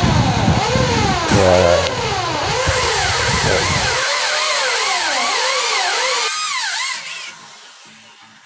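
A motor vehicle's engine passing close by, its pitch rising and falling again and again. It is loud at first, then fades away over the last couple of seconds.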